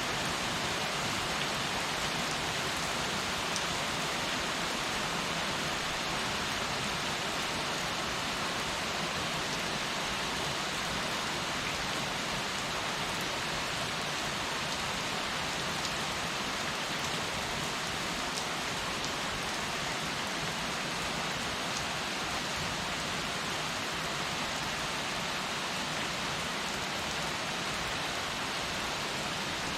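Heavy rain falling steadily, a dense even hiss of drops hitting surfaces, with faint individual drop ticks.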